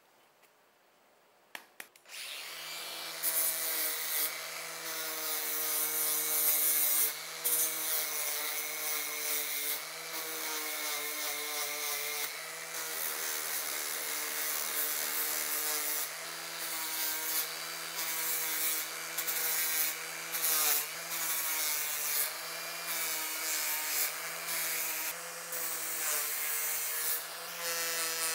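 Angle grinder with an abrasive sanding disc, started about two seconds in and grinding the steel blade of a kitchen knife: a steady motor whine under a grinding hiss that breaks off briefly several times.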